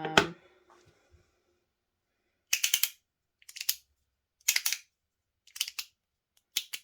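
Titanium MOT Rhythm fidget being turned, clicking through its detents in quick bursts of several sharp metallic clicks about once a second, starting about two and a half seconds in.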